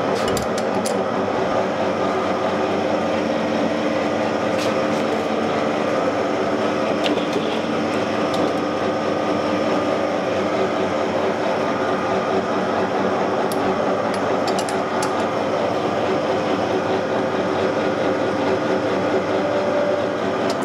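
Gear hobbing machine running steadily, its module 3.25 hob spinning while it is fed slowly in toward the gear blank; the gear train gives a steady whine made of several held tones.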